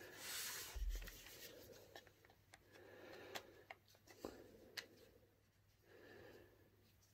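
Faint handling noises from a CO2 revolver being readied: light rubbing, a soft thump about a second in, and a few sharp light clicks.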